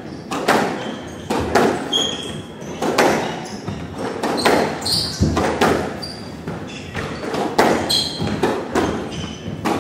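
Squash rally: the ball cracking off rackets and walls in quick succession, about one or two hits a second, with short high squeaks of court shoes on the hardwood floor between them.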